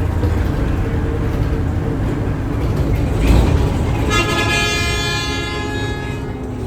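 A CNG city bus's engine running under a steady low rumble, with a heavy low thump about three seconds in. A vehicle horn then sounds for about two seconds.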